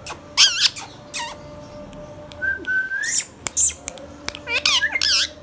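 Indian ringneck parakeet calling: several short, wavering screeches in quick groups, with a rising whistle about halfway through.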